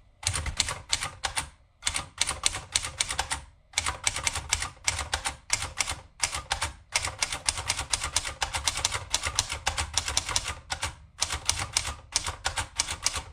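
Keys of a 1953 Empire Aristocrat manual portable typewriter being typed in quick runs of sharp clacks, several strokes a second, with brief pauses between runs.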